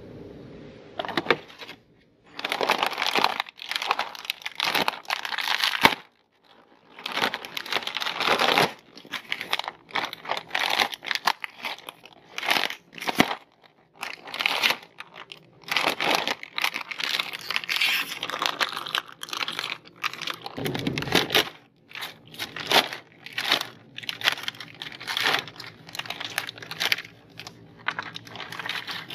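Doritos snack bags crinkling and rustling as they are handled and torn open, in irregular bursts with short pauses.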